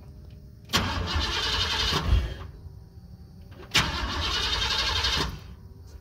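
1997 Chevrolet C1500 pickup engine cranking on the starter twice, about 1.5 seconds each time, without catching: a crank-no-start that the owner takes as a sign of moisture in the distributor.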